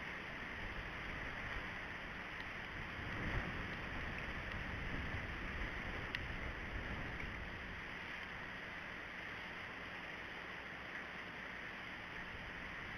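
Steady wind noise on an outdoor camera microphone: an uneven low rumble under a constant hiss, with a faint tick about six seconds in.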